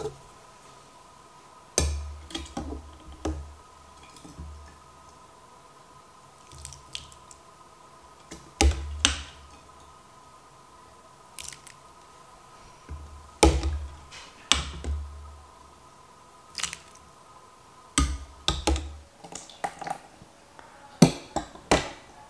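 A metal ladle scooping thick doburoku rice mash and tipping it into a gauze-lined strainer: clusters of clinks and knocks against the container with wet plops and thuds, a few seconds apart.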